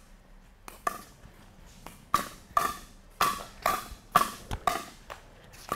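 Pickleball rally: paddles striking a hollow plastic pickleball back and forth, with bounces on the court, a string of sharp pops coming about every half second through the middle.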